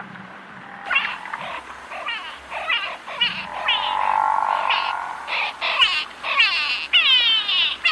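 Water buffalo lowing once, a drawn-out call about halfway through, amid many quick, high, falling chirps that come thickest near the end.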